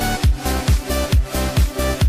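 Background music with a steady beat: a kick drum about twice a second under a busy electronic backing.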